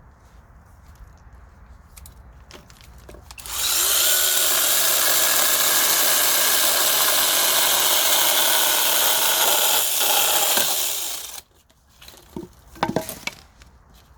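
Small battery-powered brushless mini chainsaw starting up with a short rising whine, then running steadily for about eight seconds while sawing through wood, before cutting off suddenly. A few sharp cracks and knocks follow near the end.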